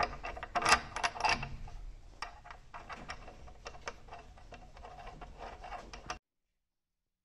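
Light metallic clicks and clinks of a steel carriage bolt and its washer being handled and worked by hand in a wooden milking-stanchion frame, thickest at the start, then the sound cuts off abruptly to dead silence about six seconds in.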